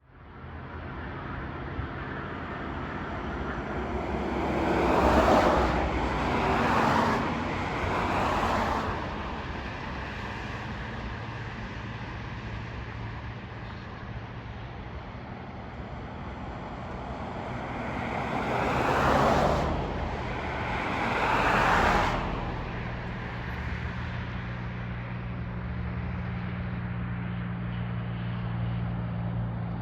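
Road vehicles passing by twice, each time in a group of two or three swells that rise and fade within a few seconds. Near the end a low steady engine hum comes in.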